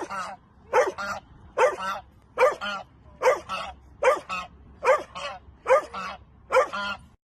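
Dog barking in a steady rhythm: about nine double barks, one a little under every second.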